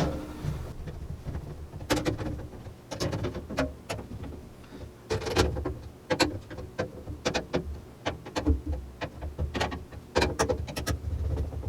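Screwdriver tightening motherboard screws into a computer case: many irregular sharp clicks and taps, with handling knocks.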